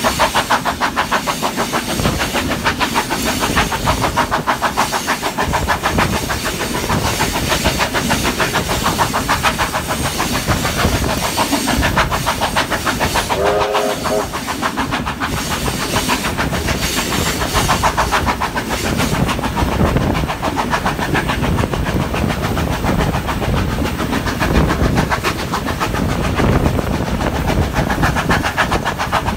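Steam locomotive hauling the train at speed, heard from a carriage window: a rapid run of exhaust beats mixed with the carriage wheels clattering over the rails.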